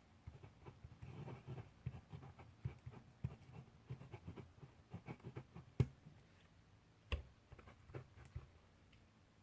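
Handwriting on paper: a close, busy run of short scratchy strokes and light ticks from a pen or pencil tip, with a couple of sharper knocks past the middle, dying away near the end.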